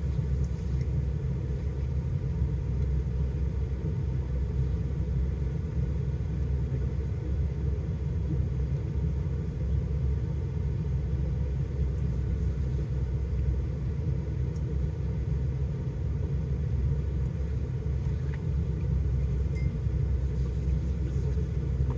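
Vehicle engine idling, a steady low rumble heard from inside the cab, with a couple of faint small clicks.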